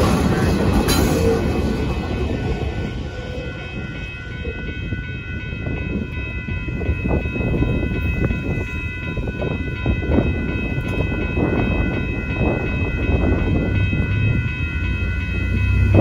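Union Pacific rock train's rear locomotive and last cars rumbling past and fading off, while the grade-crossing warning bell rings steadily throughout.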